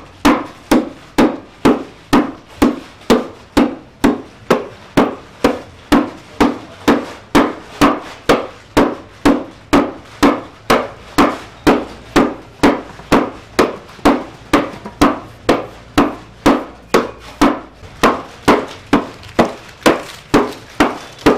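Long wooden pestle pounding dried ginger in a wooden mortar, striking in a steady rhythm of about two strokes a second, crushing the ginger to powder.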